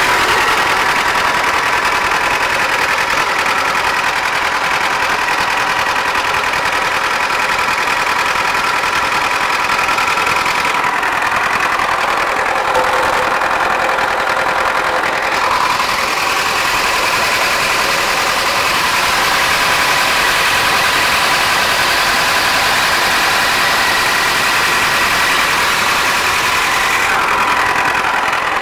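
Diesel engine of a Fortschritt E303 self-propelled mower running steadily just after being started, on a test run after its water pump was replaced.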